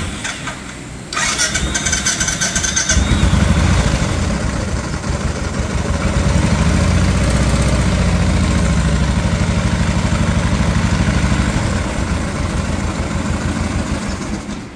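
Royal Enfield Classic 500's air-cooled single-cylinder pushrod engine starts up and runs at a steady idle, easing off slightly near the end. The engine's crankshaft bearings are worn and give off a light bearing noise as it runs.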